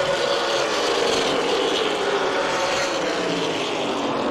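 Several super late model stock cars' V8 engines running at racing speed around a short oval, blended into one steady engine sound whose pitch drifts slightly as the cars go through the turns.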